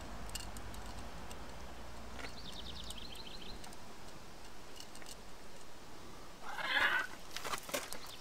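Light clicks and a short rustle of hands handling parts around the carburettor of a Yamaha Virago 535, the rustle loudest near the end. A bird's short, rapid trill sounds about two seconds in.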